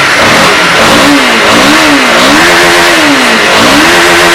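Motorcycle engine revving up and down about three times, its pitch climbing, holding briefly and dropping each time, over a loud steady rush of noise.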